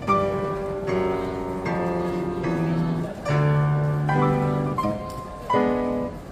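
Yamaha grand piano played by hand: sustained chords with a melody on top, a new chord struck about every second.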